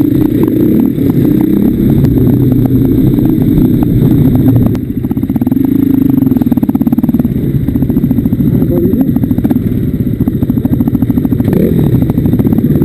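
KTM off-road dirt bike engine running loud under changing throttle while riding a dirt trail, heard from the rider's seat. The throttle eases off briefly about five seconds in, then the engine pulls on steadily.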